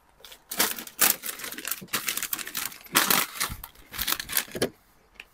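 Crisp packets crinkling and rustling as they are handled, a run of crackles starting about half a second in and stopping just before the end.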